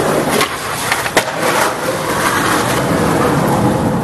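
Skateboard on concrete: urethane wheels rolling with a steady grinding hiss, broken in the first two seconds by three sharp clacks of the board, the loudest about a second in.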